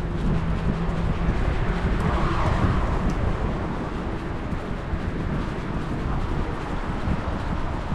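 City street traffic: a steady low rumble of vehicles, with one passing close and swelling in loudness about two seconds in before easing off.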